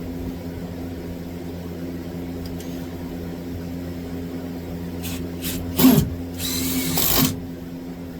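Power drill driving a screw into a 2x4: a few short spurts about five seconds in, then one longer run of about a second. A steady low hum lies underneath.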